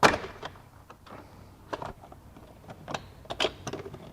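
Plastic interior trim panel of a 2005 Chevrolet Tahoe being pulled off, its push-pin clips letting go with a sharp snap at the start, then a few lighter plastic clicks and knocks.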